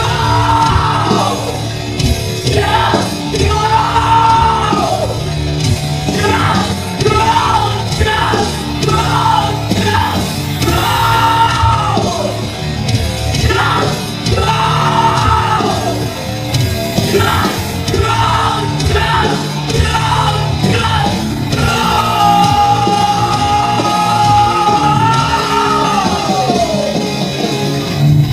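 Loud post-hardcore rock band playing, with shouted singing in short phrases over dense distorted band sound, and a long held note near the end.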